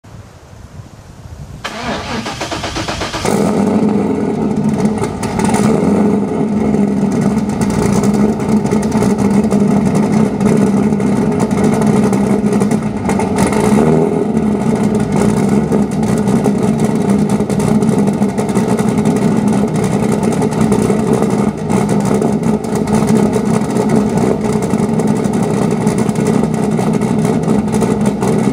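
Car engine with aftermarket headers cranking and catching about two seconds in, then idling steadily.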